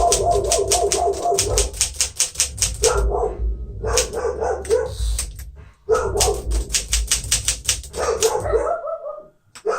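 Fast keystrokes on a 1957 Smith-Corona Silent-Super manual typewriter, in two main runs with a pause in between, while a dog barks over the typing again and again.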